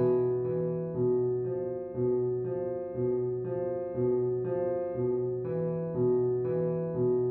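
Soundscape music on a piano-like keyboard: notes struck about every half second, each ringing and fading into the next in a slow, repeating figure.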